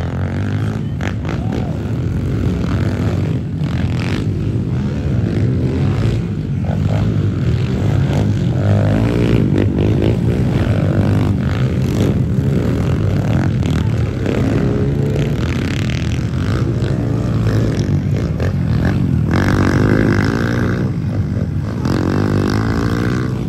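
Several pit bikes racing around a dirt track, their small engines revving up and falling back over and over, overlapping as they pass.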